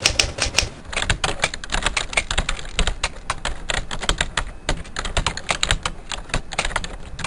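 Fast, loud typing on a computer keyboard: a rapid, irregular run of key clicks with no pause.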